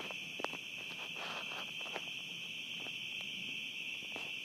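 Steady high-pitched chorus of night insects, an unbroken trill, with a few faint clicks.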